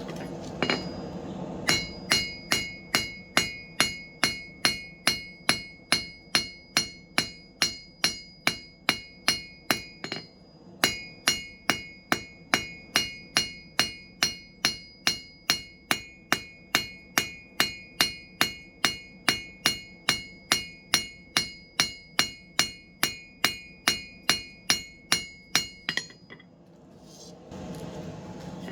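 Blacksmith's hammer striking hot steel on an anvil in a steady rhythm of about two to three blows a second, each with a bright metallic ring. There is a brief pause about ten seconds in. The hammering stops near the end, leaving a low rushing noise.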